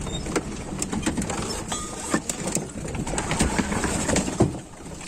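A heavily loaded vehicle's engine running low as it descends a rough mountain track, with frequent knocks and rattles from the body and load jolting over the broken surface.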